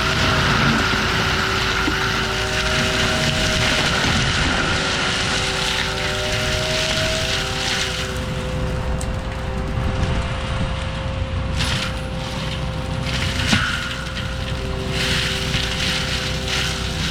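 ASV RT-120F compact track loader running a forestry mulcher: a steady engine and mulching-drum drone with a whine that shifts slightly in pitch. In the second half, occasional sharp cracks come as the drum chews through small trees.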